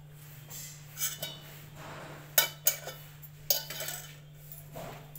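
Stainless steel kitchenware clinking as a handled mesh strainer is set across a steel pot: a few light metal knocks, with three sharp clinks between about two and a half and three and a half seconds in.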